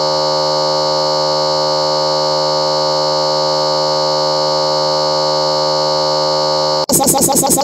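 A loud, steady electronic buzzing drone made of several fixed tones that never change. It cuts off sharply near the end, and a fast-pulsing electronic beat begins at once.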